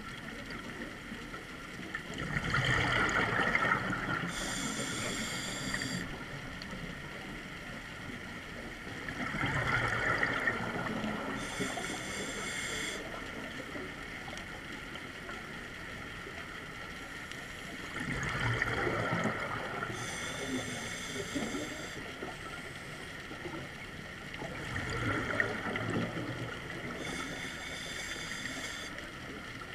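Scuba diver breathing through a regulator underwater: four breaths about seven to eight seconds apart, each a bubbling rush followed by a shorter hiss.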